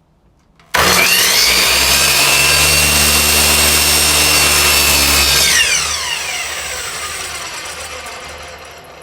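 Power miter saw motor switched on, spinning up quickly and running at full speed for about five seconds with a high whine, then switched off and winding down with a falling whine that fades away.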